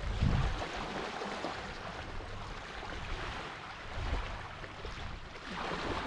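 Wind buffeting the microphone in gusts over a steady rush of small waves lapping at a sandy river shore.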